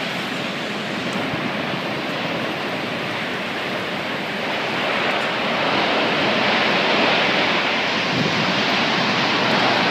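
Tornado-force wind blowing hard across the microphone: a steady rushing noise that grows louder about halfway through.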